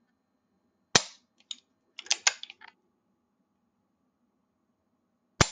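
Colt 1911 pistol dry-fired: the trigger is pulled and the hammer snaps down with a sharp metallic click about a second in, a quick series of smaller clicks follows as the pistol is recocked, and the hammer falls again with a second sharp click near the end.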